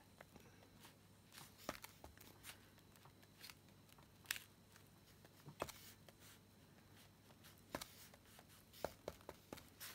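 Near silence with a faint low hum and soft, irregular light taps: the tip of a heated encaustic stylus tapping on a wax-coated card.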